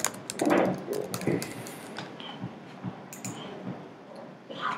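Typing on a computer keyboard: a few scattered keystrokes.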